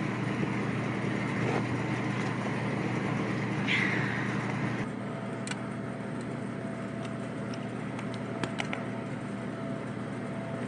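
Steady low hum of running rooftop equipment, with a few small sharp clicks in the second half as wires are worked into the mini-split outdoor unit's terminal block.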